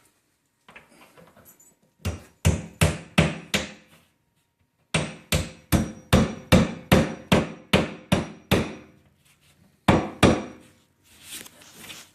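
Hammer blows in quick runs, about two to three a second: a short run of about five, a longer run of about ten, then two more.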